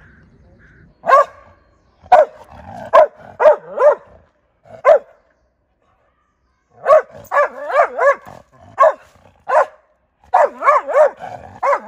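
Norwegian Elkhound barking in volleys of short, sharp, high barks, several a second, with pauses between the volleys, starting about a second in: a dog barking at a squirrel on a tree trunk.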